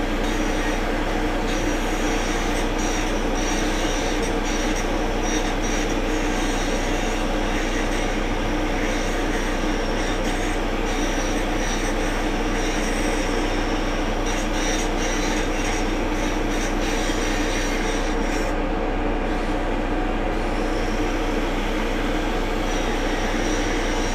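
Excavator running: steady diesel engine and hydraulic noise with a high whine that drops out for a couple of seconds near the end.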